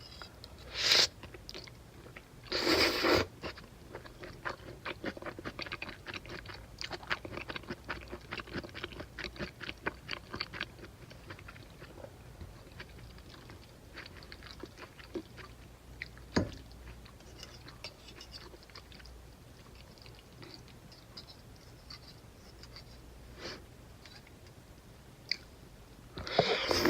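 A person eating cream pasta: close chewing with many small clicks, and louder noisy knocks about a second in and again around the third second.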